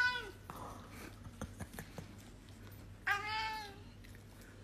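Kitten meowing twice: the end of one call right at the start, then a second, shorter arching meow about three seconds in.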